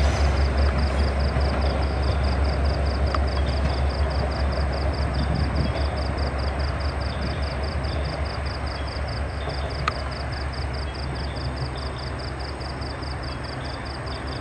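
Rumble of a diesel-hauled passenger train rolling away, slowly fading, over a steady high pulsing chirp of about three beats a second. A single sharp click about ten seconds in.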